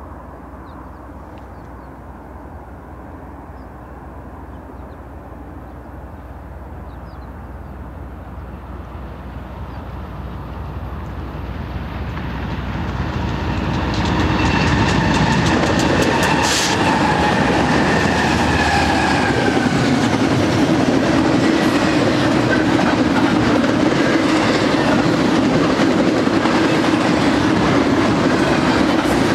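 BNSF double-stack intermodal train led by GE ES44C4 diesel-electric locomotives approaching and passing. It grows steadily louder over the first half as the locomotives come by, then holds level with the steady sound of the loaded container well cars rolling past on the rails.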